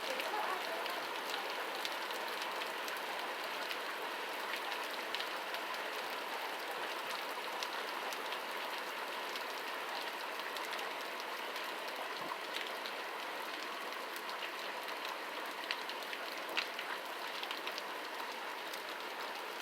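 Steady rainfall: an even hiss with scattered sharp drop ticks.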